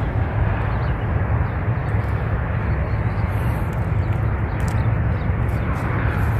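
Steady outdoor noise: a low, fluttering rumble with an even hiss above it and no distinct events.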